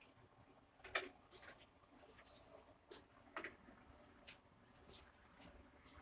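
Faint, irregular soft clicks and scuffs, roughly two a second, from the person filming as they handle the phone and move through the workshop.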